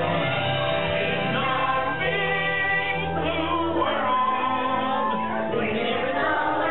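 A song with several singing voices over music, playing as the soundtrack of an animated underwater dark ride.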